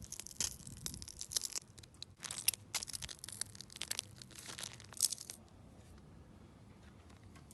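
Slime being squeezed and worked by hand, making a dense run of crackling, popping clicks that stops about five seconds in, leaving only a faint hiss.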